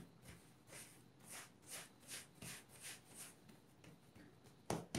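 Hands pressing and rubbing a ball of risen pizza dough on a floured silicone mat to knock the air out: faint soft rubbing strokes about two a second, with one sharper pat near the end.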